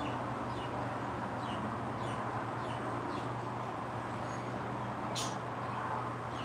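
A small bird chirping about twice a second over a steady low hum and background hiss, with one sharp high click about five seconds in.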